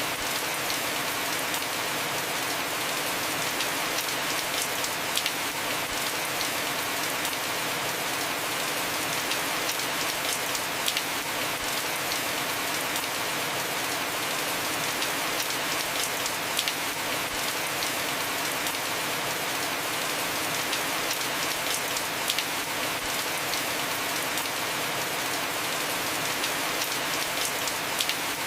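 Heavy rain falling steadily on a house roof, an even hiss with scattered sharp drop ticks.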